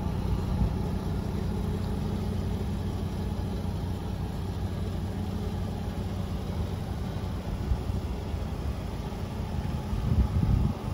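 Jaguar F-Type S's supercharged V6 idling steadily, with a brief louder low rumble about ten seconds in.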